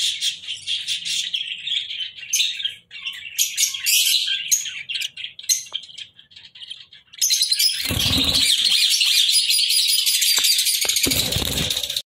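Budgerigars chirping in high, rapid notes: scattered chirps at first, then a dense, continuous chatter over the last few seconds. A few low knocks come in around the middle of that chatter.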